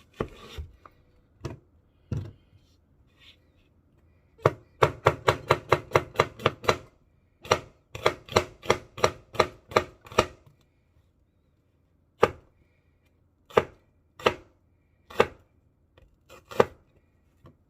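Kitchen knife slicing an onion on a cutting board: sharp knocks of the blade meeting the board, a few at first, then quick runs of about five strokes a second, then slower single strokes near the end.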